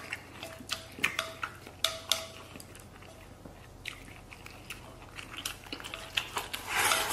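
Close-up eating sounds: chewing and biting on braised beef and rice, with sharp clicks of wooden chopsticks against a metal bowl, some followed by a brief ring. Near the end comes a louder, noisy stretch of about a second as rice is shoveled from the bowl's rim into the mouth.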